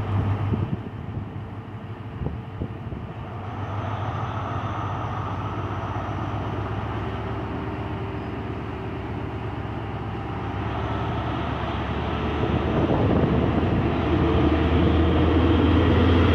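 Diesel engines of a GWR High Speed Train's Class 43 power cars (43192 and 43189) running with a steady low drone, growing louder over the last few seconds.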